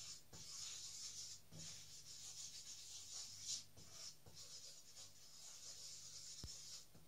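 Wooden spoon stirring and scraping a flour-and-oil roux in a frying pan: a faint, steady scraping hiss with brief breaks between strokes, which stops near the end.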